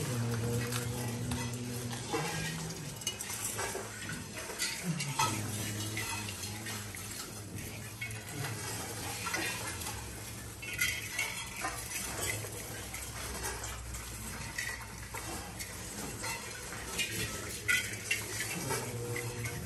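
Handfuls of grain pouring, scattering and being rubbed over metal mandala-offering plates: a steady patter of small rattles, scrapes and clinks. A low voice sounds drawn-out notes at the start and again near the end.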